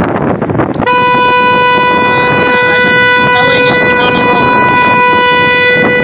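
Car horn held down in one long, steady, unbroken blast that starts suddenly about a second in, over street and wind noise.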